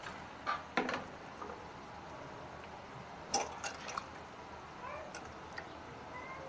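Rice balls frying in oil in a wok with a faint steady sizzle, and a few sharp clicks and knocks as kitchen bowls and utensils are handled, two near the start and a cluster a little past the middle.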